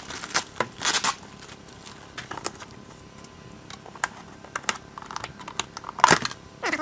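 Plastic packaging crinkling and cardboard box packaging rustling as hands pull them about, with loud crinkly bursts about a second in and again near the end, and scattered small clicks and taps between.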